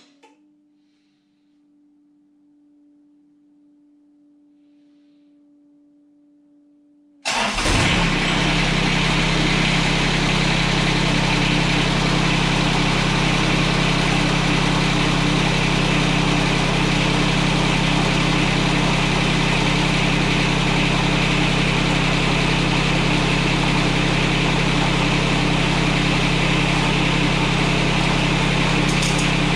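John Deere 455 garden tractor's three-cylinder Yanmar diesel engine starting suddenly about seven seconds in, after a faint steady tone, then running at a steady speed. It is being run briefly after an oil change to fill the empty oil filter.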